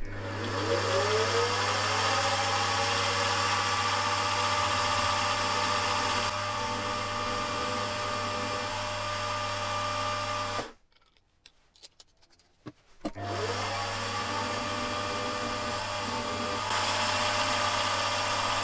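Machine drill spindle motor spinning up and running steadily while a 3.5 mm twist drill bores into a small metal part. The sound cuts out for about two seconds past the middle, then the motor spins up and runs again.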